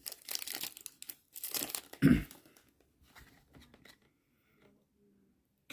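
Foil Pokémon booster pack wrapper being torn open and crinkled, with a dull thump about two seconds in, then fainter rustling as the cards come out.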